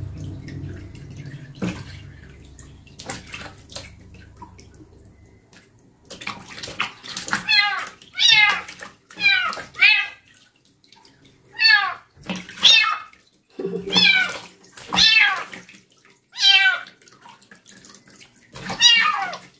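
Kitten meowing over and over while being washed in a basin of water: about a dozen short, high cries, each falling in pitch, starting about six seconds in. Water splashes softly under the hands between cries.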